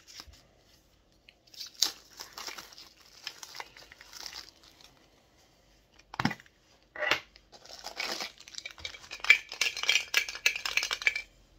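A Funko Soda collectible can being opened by hand: two sharp clicks as the can is worked open, then the black plastic bag inside crinkling and tearing, loudest near the end.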